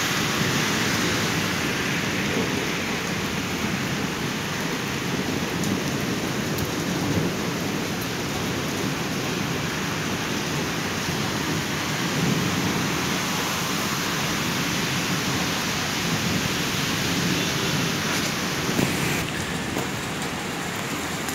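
Heavy rain mixed with hail pouring down on a street and pavement: a steady, dense hiss.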